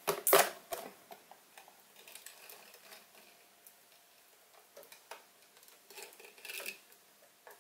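Handling clicks and knocks as the front control panel of a Sieg SC4 bench lathe is worked loose and pulled away: a loud clatter just after the start, scattered light ticks, and a louder rattle about six and a half seconds in.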